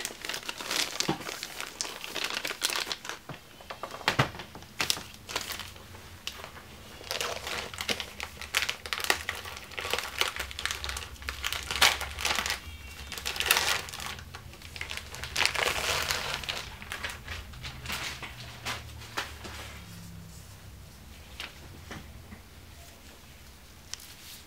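Plastic packaging crinkling and crackling as a replacement laptop LCD panel is unwrapped by hand, in irregular spells that die down over the last few seconds.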